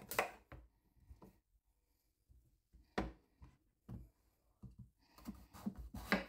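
Chef's knife cutting through raw acorn squash and knocking on a bamboo cutting board: scattered knocks, a short pause, then a quicker run of cuts near the end.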